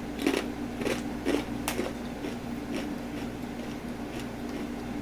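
Crispy fried kangkong (water spinach) chips being bitten and crunched, with four sharp crunches in the first two seconds and then softer chewing crackles. A steady low hum runs underneath.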